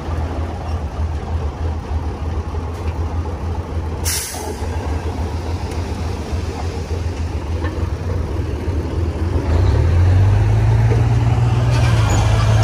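Heavy diesel earthmoving engine running steadily, with a short sharp hiss of air about four seconds in. From about ten seconds in the engine revs up and runs louder, working under load.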